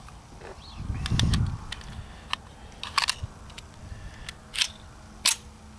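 Metallic clicks and clacks of a CZ 52 pistol being handled and loaded: the magazine going in and the slide being worked, about ten short clicks spread over a few seconds. A brief low rumble about a second in.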